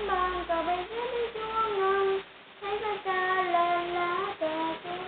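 A child singing a Vietnamese children's song, a single voice holding long notes, with a short breath pause about two seconds in.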